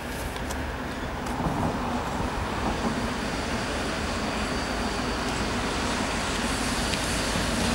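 DM62 diesel locomotive's two-stroke V12 diesel engine running as the locomotive approaches with a passenger train. A steady low drone grows gradually louder.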